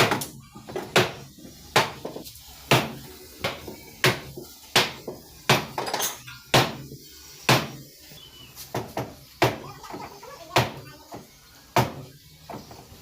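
Hammer blows on the sheet-metal rear body panel of a Maruti Suzuki Alto K10, beating out dents: sharp strikes at about one a second, some lighter than others.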